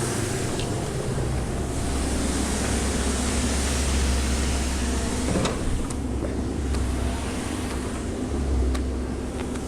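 An engine running steadily, with a low rumble that swells and eases.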